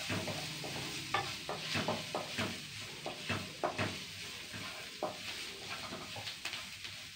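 Onions and ground spices sizzling in oil in a non-stick frying pan while a spatula stirs them, scraping and knocking against the pan at an irregular pace.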